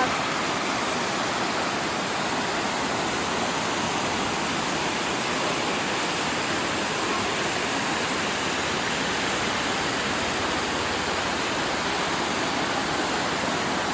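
Large waterfall pouring: a steady, unbroken rush of falling water.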